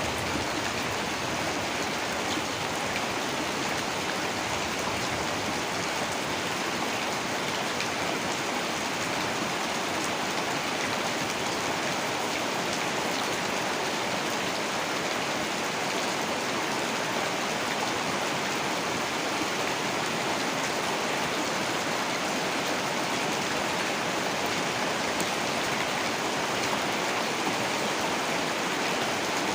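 Heavy rain falling steadily, an even hiss of many drops with no let-up.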